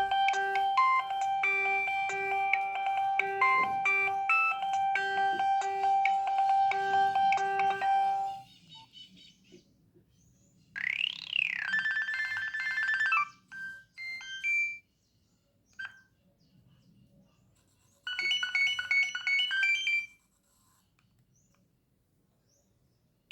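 Nokia 6560 mobile phone playing its ringtones through its speaker. A tune of several notes at once stops about eight seconds in. A short ringtone with a note that swoops up and back down follows, then a few single beeps and another brief ringtone phrase, with near silence in between.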